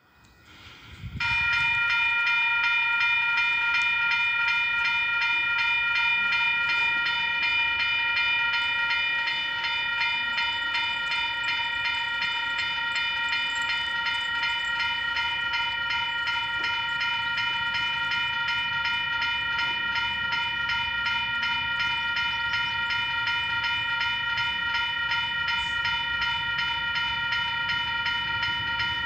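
Railway level crossing warning bell, starting about a second in and ringing on with rapid, even strokes while the barrier arms come down: the signal that a train is approaching.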